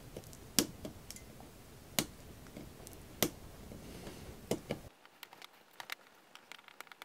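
Flush cutters snipping moulded plastic standoff posts out of a plastic case: five sharp snaps about a second apart, then fainter small clicks of plastic.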